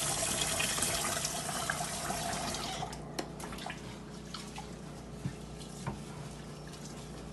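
Water running into a kitchen sink as rice is washed and drained through a strainer. The flow stops about three seconds in, leaving a few light knocks.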